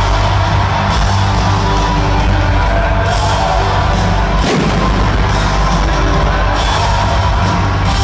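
Live rock band playing loud through an arena sound system, heard from the upper seats, with heavy bass throughout. About halfway through, a sweep falls sharply in pitch.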